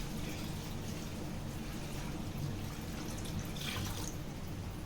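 Water being poured into a pan of sugar to make sugar syrup, a steady splashing pour.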